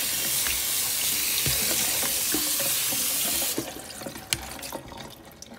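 Cold water from a kitchen faucet running onto chopped cabbage in a plastic colander, a steady splashing hiss that stops abruptly about three and a half seconds in. A single sharp click follows a moment later, with a few fainter clicks after it.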